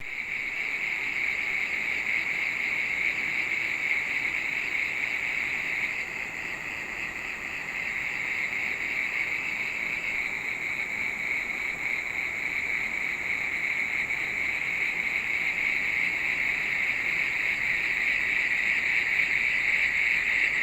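Steady, high-pitched insect chorus, a continuous trill that starts abruptly and holds without a break.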